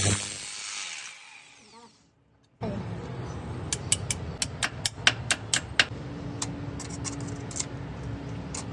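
A power drill's whir fades away over the first two seconds. After a short gap comes a quick run of about a dozen sharp clicks, roughly five a second, then a few scattered clicks over a steady low hum.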